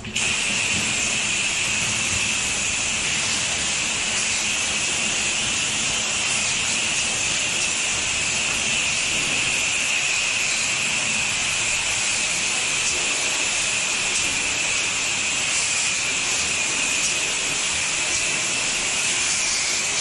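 Pressure washer spraying from the wand, a steady high hiss of water jetting from the nozzle that starts abruptly and holds without a break.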